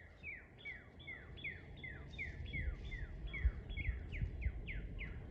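Northern cardinal singing a fast series of repeated down-slurred whistles, about three a second, over low thuds of wind or handling noise on the microphone.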